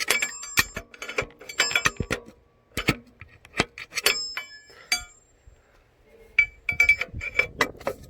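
Metal hand tools clinking against metal engine parts in irregular sharp clinks that ring briefly, with a couple of short pauses, during belt and tensioner-bolt work on a truck engine.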